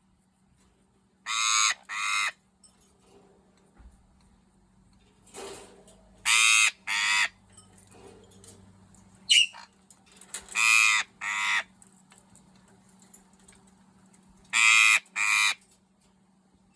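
Hungry eclectus parrot squawking in harsh double calls: four pairs, a few seconds apart, with one short higher squeak between the second and third pairs.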